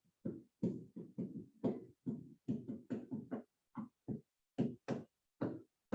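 A quick, irregular series of short taps or knocks, about three to four a second, each cut off sharply.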